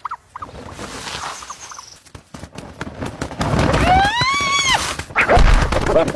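A wild animal's cries amid scuffling. About three and a half seconds in there is one long squealing call that rises and then falls in pitch, followed by thuds and scuffling near the end.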